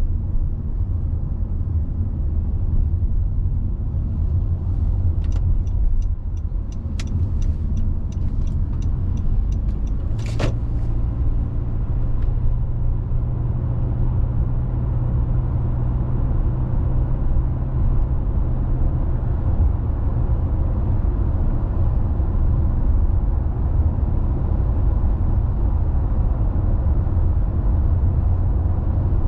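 A car's steady low road and engine rumble while driving. Midway there is a run of light ticks, about two a second, then one sharp click.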